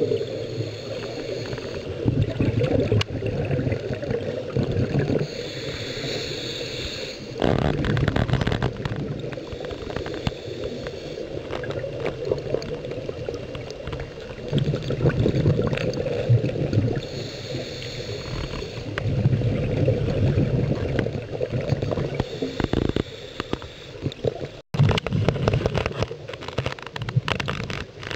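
Scuba breathing underwater through a regulator: a hissing inhalation followed by a rumbling, gurgling release of exhaust bubbles, repeating at a slow breathing pace. The sound cuts out for an instant near the end.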